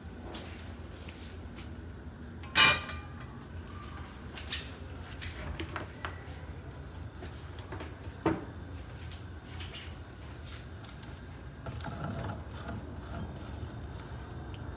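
Kitchen handling noises: scattered knocks and clinks of cookware and utensils over a steady low hum. The loudest is a ringing clank about two and a half seconds in, with two more knocks later.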